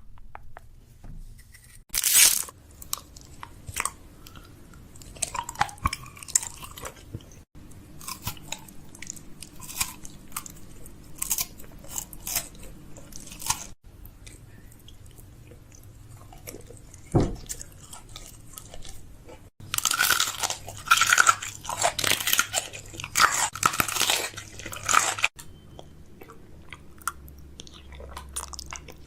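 Close-miked crunchy crackling, clicking and tapping, in scattered bursts with a dense stretch of crackle about two-thirds of the way through.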